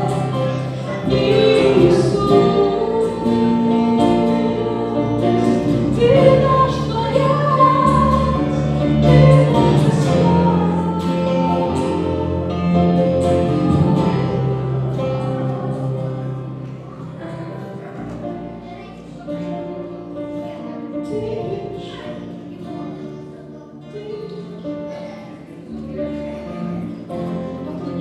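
Worship band: several voices singing a song together over guitars and keyboard, growing quieter about halfway through.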